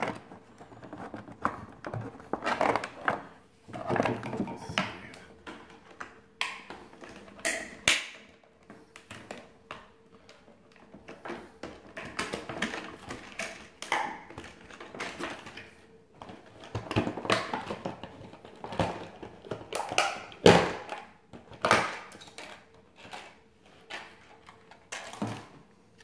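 Plastic packaging tray being handled and worked open: irregular clicks, taps and crinkles of stiff plastic, some sharp and loud. A faint steady hum runs underneath.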